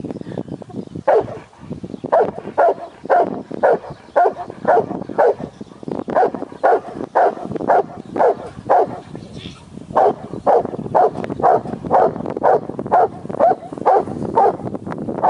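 Sheepdog barking steadily about twice a second while driving sheep, in long runs with a few short breaks.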